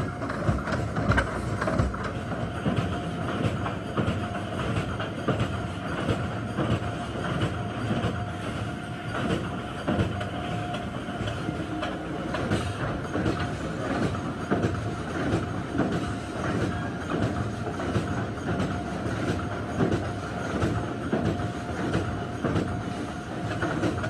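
Heavy industrial machinery running, with continuous clattering and rattling over a steady hum and a faint whine.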